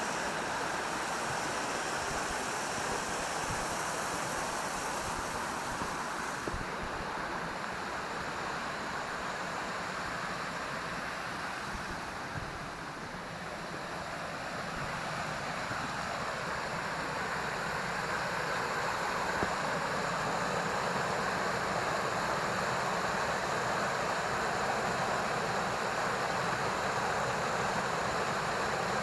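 Steady rush of a forest stream's waterfall, with a slight dip about halfway through.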